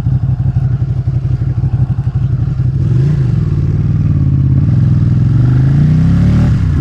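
Motorcycle engine running under way, pulsing unevenly at low revs at first, then pulling up with its pitch rising, and dropping sharply near the end, as at a gear change.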